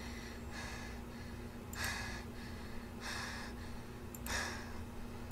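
A woman breathing audibly, about four breaths roughly a second and a half apart, over a steady low hum.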